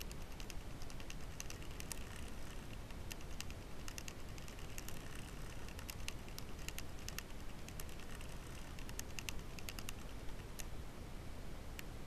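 Faint, irregular clicks and ticks over a steady low hiss.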